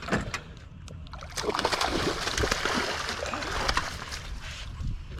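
Hooked catfish thrashing and splashing at the water's surface beside the boat as it is brought in, a burst of choppy splashing from about a second and a half in that lasts about three seconds.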